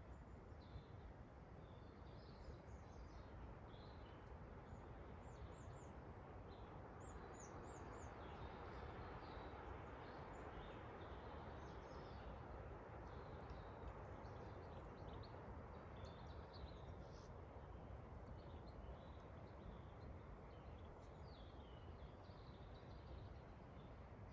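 Forest birds chirping and calling in short, scattered high notes over a soft, steady rush of wind.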